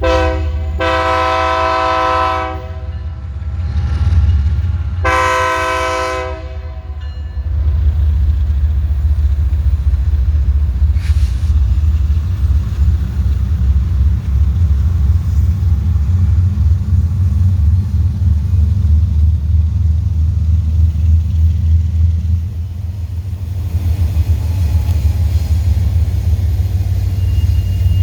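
Horn of a BNSF GE Evolution-series (GEVO) freight locomotive sounding two long chord blasts, then the steady low rumble of the locomotives and train rolling past.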